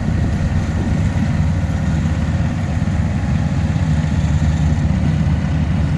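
Diesel engine of rice-harvesting machinery, a combine harvester or grain tractor, running steadily with a low, even rumble.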